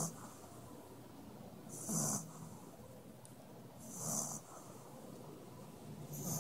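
French bulldog snoring in its sleep: a rasping snore about every two seconds, each with a low pitched buzz under it.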